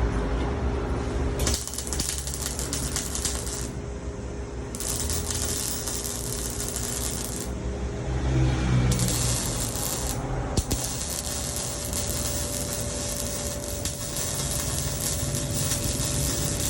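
MIG welding arc crackling in several runs of a few seconds each, with short breaks between them, over a faint steady hum from the machine. The crackle is even and smooth, the sign of a well-set arc.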